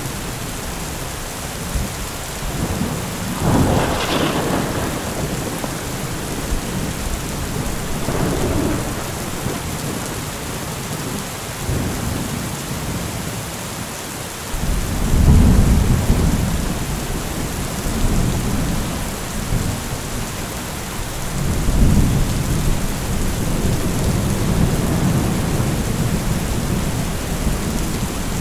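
Heavy rain falling steadily, with thunder. There is a sharp crack about four seconds in and a weaker one a few seconds later. Deep rolling rumbles build up about halfway through and again near the end.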